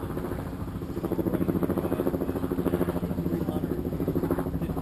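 An engine drones steadily with a fast pulsing beat, growing louder about a second in.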